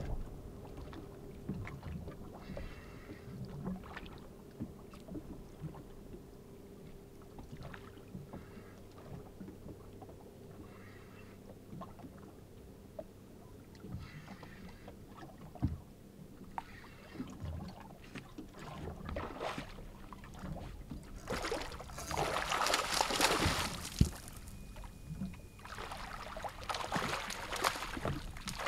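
Hooked bluefish thrashing and splashing at the surface beside a small boat, in two loud bursts of splashing in the last several seconds. Beneath it, water laps against the hull with small knocks over a faint steady low hum.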